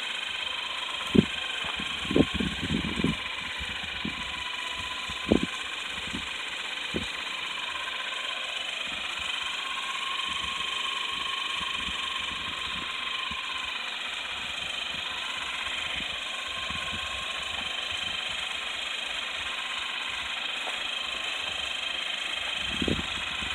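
Two small battery-powered electric motors whining steadily as they spin the tandem rotors of a popsicle-stick model helicopter. There are a few short low thumps in the first seven seconds.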